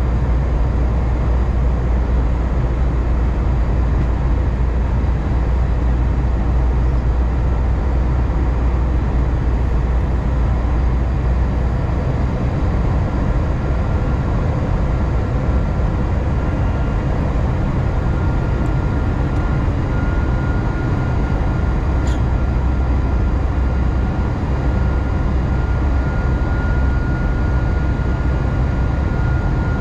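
Steady cabin noise inside an Airbus A320 with its engines running: a dense, even rumble strongest in the low end. A faint high steady tone fades in about halfway through, and there is one brief click a little later.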